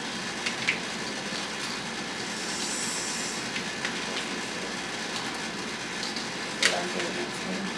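A steady hiss with a few short clicks of small plastic balls knocking in a clear plastic cup as it is handled, the sharpest one near the end, followed by a brief murmur of voice.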